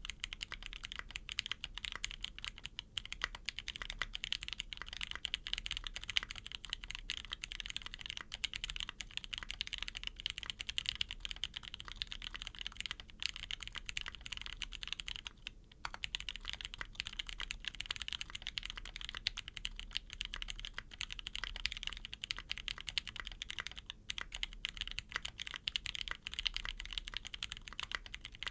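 Fast, continuous typing on a custom 65% mechanical keyboard with a brass plate and lubed, filmed Penguin tactile switches, with GMK keycaps and a gasket-mounted case. A dense run of keystroke clacks, pausing briefly twice.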